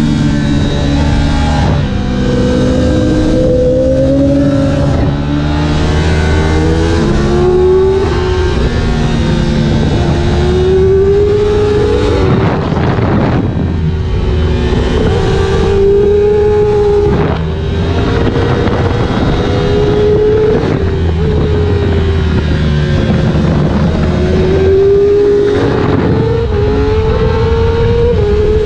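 Yamaha R1S's crossplane inline-four engine at high revs on track, its pitch rising and falling again and again with throttle and gear changes, under loud wind rush on the microphone.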